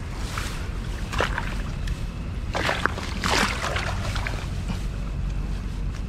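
Water splashing and sloshing in several short bursts, the biggest cluster near the middle, over a steady low rumble.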